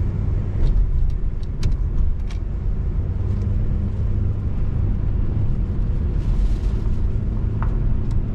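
Car on the move: a steady low engine and road rumble, with a few faint light clicks over it.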